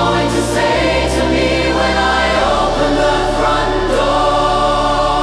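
Music: choir-like voices holding long notes over a steady bass, with a new held note coming in about four seconds in.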